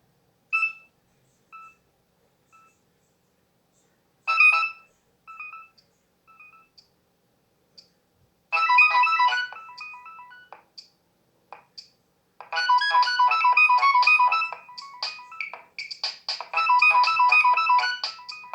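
Nokia 6100 mobile phone playing one of its built-in ringtones through its small loudspeaker. It starts about half a second in with two single notes, each followed by a few fading repeats, then breaks into a busy electronic melody from about eight seconds in.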